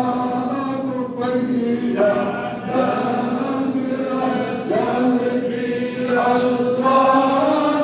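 Men's voices chanting devotional praise of the Prophet, sung in long held, wavering notes.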